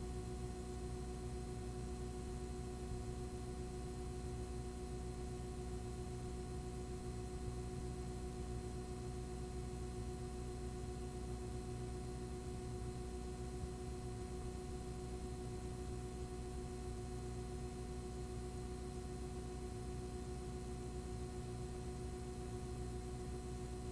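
Steady electrical hum made of several fixed tones over a constant hiss, unchanging, with no other sound: the background noise of a blank stretch of video recording.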